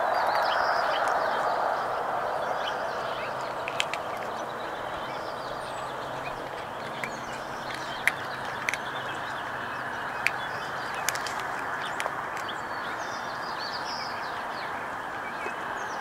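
A cat chewing dry treats, with several sharp crunches through the middle, over steady background noise. Small birds chirp faintly near the start and again near the end.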